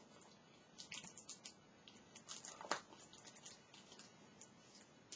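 Faint, irregular light clicks in quick clusters, with one sharper click a little past the middle.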